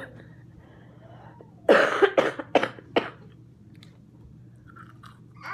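A woman coughing: one hard cough about two seconds in, then three shorter coughs in quick succession.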